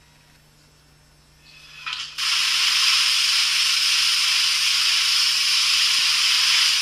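Plasma cutter torch starting up: a short build and sputter, then a loud, steady hiss of cutting air and arc that sets in suddenly about two seconds in.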